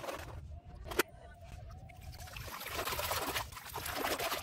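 A hand splashing and sloshing through shallow muddy water, growing busier over the last two seconds, with a single sharp knock about a second in.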